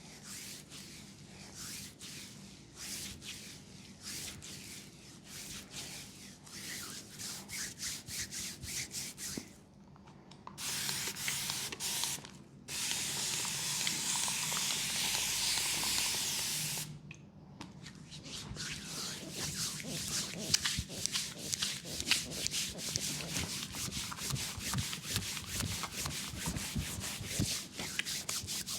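Hands rubbing and stroking skin in a leg massage, with a steady hiss in the middle for several seconds, then a fast run of quick slaps or chops on the leg for the last ten seconds or so.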